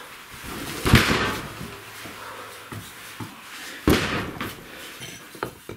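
Two heavy thuds about three seconds apart, then a few lighter knocks near the end: a large oak log round being dropped and set down on a wooden plank floor.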